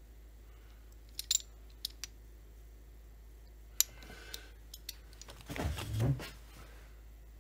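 Scattered small metallic clicks and taps as a chainsaw oil-seal puller and crankcase parts are handled, then a louder, duller knock and handling noise about five and a half seconds in as the puller tool is picked up.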